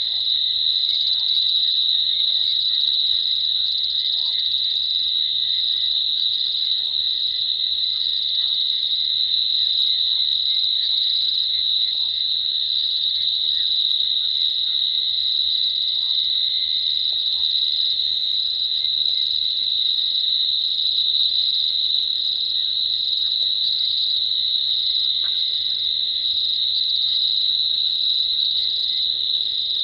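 Night chorus of crickets: a steady, unbroken high-pitched trill at one pitch, with faint short calls scattered beneath it.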